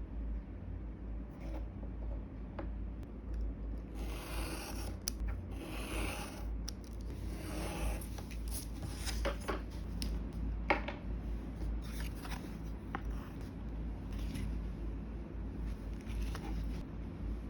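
Hand-crafting sounds of paper and card being cut and rubbed: a few seconds of rustling strokes, then several sharp clicks around the middle and lighter scratching, over a steady low hum.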